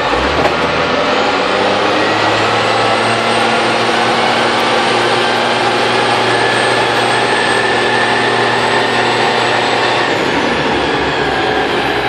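Sisu TD1612 truck's Valmet diesel engine running under load: its pitch climbs over the first few seconds, holds steady, then drops near the end, with a faint high whine rising and falling along with it.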